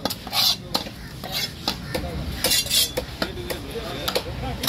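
A fish-cutting knife scraping and tapping on a wooden chopping block as a big shankara fish is cut into chunks: scattered sharp knocks, with two short scrapes about half a second in and around two and a half seconds in.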